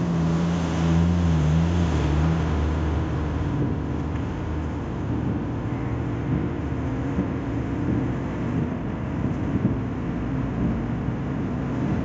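Road noise from a moving vehicle: a steady rumble of tyres and engine with some wind. An oncoming heavy diesel truck's engine drones loudly as it passes close in the first two or three seconds, its pitch dipping slightly as it goes by.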